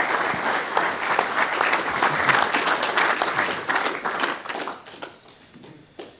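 Audience applauding, many hands clapping together, dying away about five seconds in.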